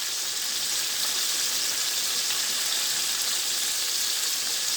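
Pieces of breaded chicken deep-frying in hot oil: a steady sizzle, the chicken partway cooked and crisping up.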